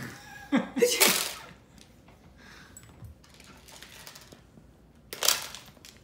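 A person sneezing: a short "ah… ah" lead-in about half a second in, then a loud sneeze about a second in, and a second, similar burst near the end.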